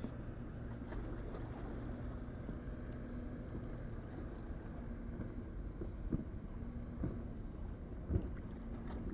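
Wind rumbling on the microphone by the sea, with a faint steady hum that breaks off and comes back several times, and a few soft knocks in the second half.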